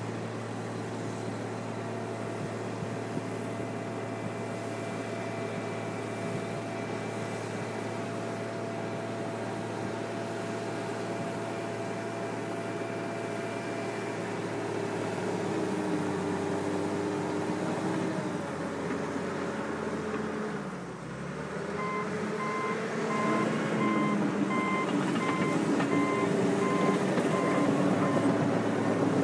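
John Deere 750J bulldozer's diesel engine running steadily, its pitch shifting as the load changes and dipping briefly about two-thirds of the way through. After the dip the reverse alarm beeps at a steady pace for several seconds as the dozer backs up.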